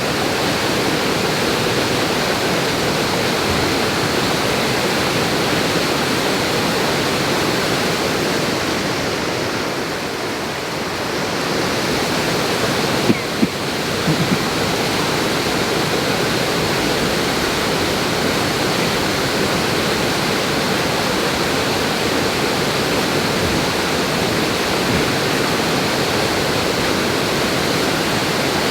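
Waterfall running in flood after heavy rain: a steady, loud rush of water, with two brief knocks about thirteen seconds in.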